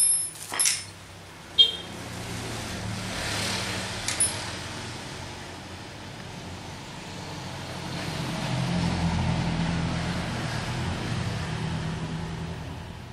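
A motor vehicle engine running steadily, growing louder about eight seconds in and then fading. A few sharp clicks and knocks come near the start.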